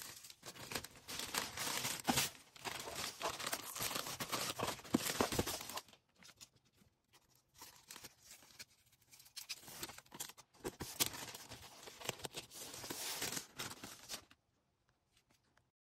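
Packaging material handled by hand while an order is packed: crinkling, rustling and tearing, loudest in the first six seconds, dying down, picking up again, then stopping about fourteen seconds in.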